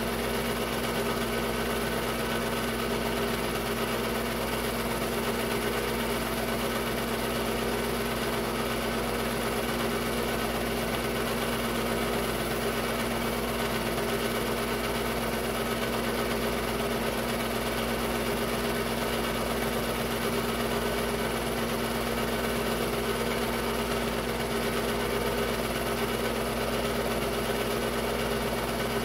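Technicolor 810 8mm film-loop projector running: a steady, unchanging mechanical hum from its motor and film mechanism.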